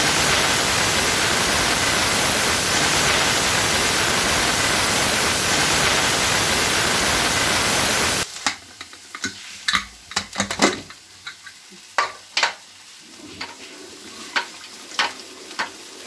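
Aluminium pressure cooker venting steam through its weight valve: a loud, steady hiss with a faint whistle tone in it, the sign that the cooker is at full pressure. It cuts off suddenly about eight seconds in, leaving scattered sharp clicks and knocks.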